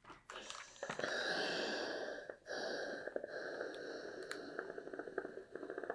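Woven cotton fabric being folded and pressed with a household iron on an ironing board: a steady rustling noise with small clicks, broken off briefly a little over two seconds in.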